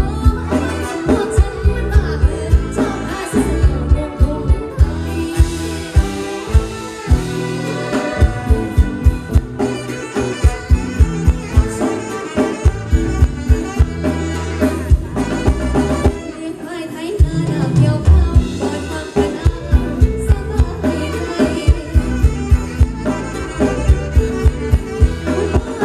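Live Thai ramwong dance band playing loud through a PA: a woman singing over a steady drum beat, with electric guitar.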